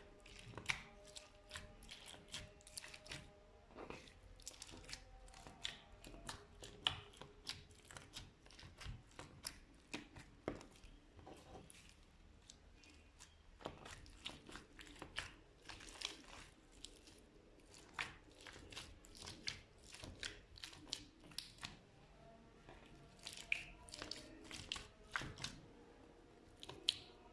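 Slime being squished and pulled, giving irregular sticky crackles and pops, several a second.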